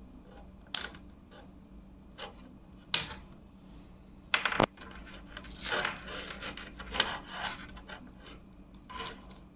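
Handling noise from unpacking a microphone and its accessories: sharp clicks and knocks about 1, 3 and 4.5 seconds in, then a stretch of rustling and scraping from about 5 to 7.5 seconds, with a few light clicks near the end.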